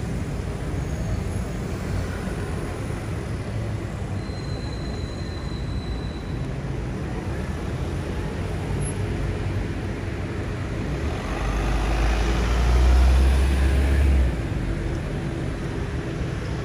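Steady city street traffic noise. A large vehicle passes close from about eleven seconds in, its deep rumble and rushing noise the loudest part, dropping off sharply about three seconds later.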